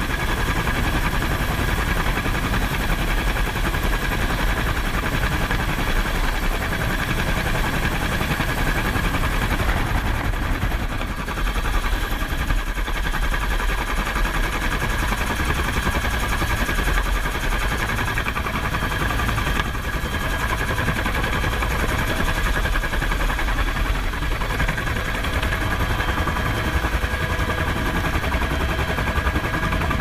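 Military helicopter's rotor and turbine running loud and steady in a hover during a hoist rescue, a rapid blade chop under a constant engine whine, heard from the open cabin door.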